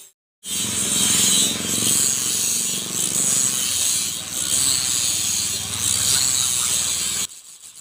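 Abrasive tool working a steel golok blade: a loud, continuous scraping noise that starts just after a short gap and cuts off abruptly near the end, leaving a faint hiss.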